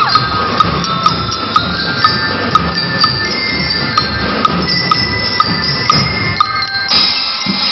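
Drum and lyre band playing: bell lyres ring out metallic notes over a steady drum beat, with sharp strikes about twice a second. Near the end the low drum part thins out.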